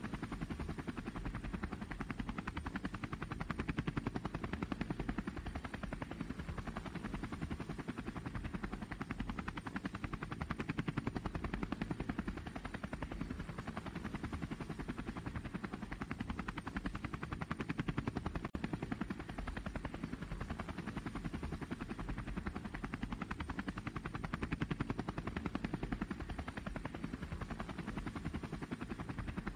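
DJI Phantom quadcopter's electric motors and propellers running steadily in flight, a fast buzzing propeller chop that swells and eases slowly every several seconds.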